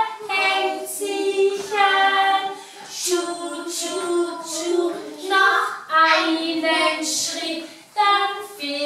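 A group of young children and a woman singing a song together, the melody sung in held notes with short breaks between phrases.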